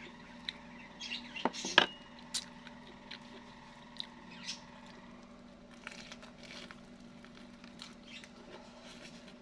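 Close-up eating sounds: small clicks, taps and wet mouth noises as a fork is used and a breaded fried snack is bitten and chewed, with a louder cluster of clicks and knocks about a second and a half to two seconds in. A faint steady hum sits underneath.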